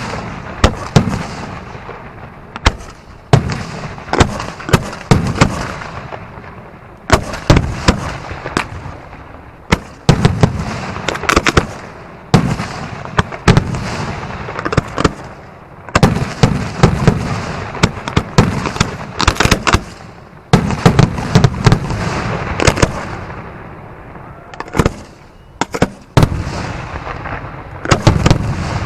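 Fireworks display: shells bursting in quick, irregular succession, sharp loud bangs with crackling and rumbling between them. The bangs come in dense barrages with a brief lull near the end.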